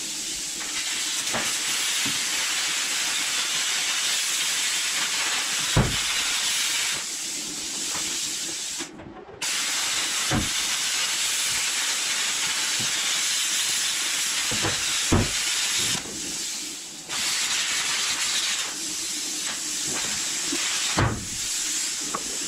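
Electric arc welding on a steel shipping container wall: a steady crackling hiss from the arc, breaking off briefly twice as the weld is stopped and restarted. A few dull knocks sound between the runs.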